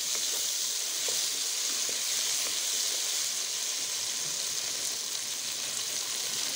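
Sliced onions, chopped tomatoes and green chillies frying in hot oil in a pot: a steady sizzle, with a few faint ticks as a wooden spatula stirs them.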